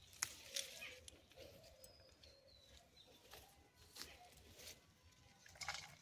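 Faint crackling and sharp clicks of a green chilli plant's leaves and stems being handled as chillies are picked by hand and gathered over a basket. The clicks come every second or so, with the loudest just after the start and a cluster near the end.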